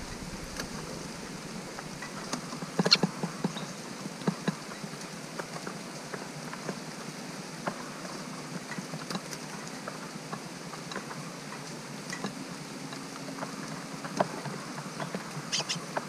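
Steady summer rain falling, with irregular close-by ticks and taps scattered through it and a small cluster of them about three seconds in.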